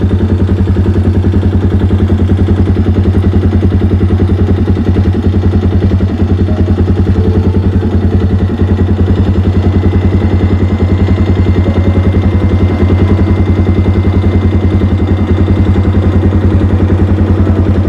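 A vehicle's engine running steadily, loud and close, with a fast, even pulsing beat and no change in speed.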